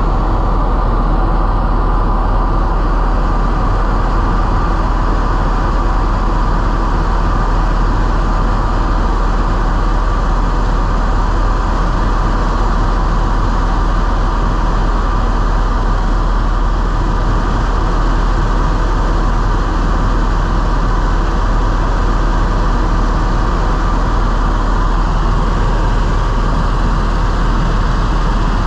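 A helicopter in flight: the steady, unbroken drone of its engine and rotor.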